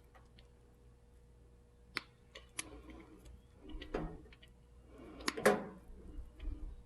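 Wire cutters snipping at an extension cord's outer jacket: a few sharp clicks, the loudest near the end, with rustling as the cord is handled.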